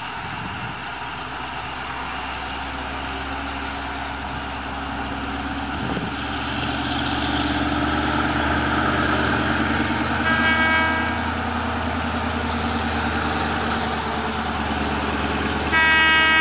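Diesel locomotive hauling a passenger train approaching, its engine growing louder with a high whine that rises in pitch. A train horn sounds briefly about ten seconds in and again, louder, near the end.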